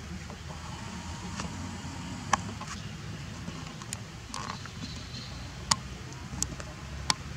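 A steady low rumble of background noise, broken by about six short sharp clicks or cracks scattered through the second half.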